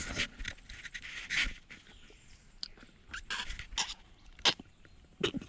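A few short smacks and clicks over a quiet background, among them the lip smacks of a kiss.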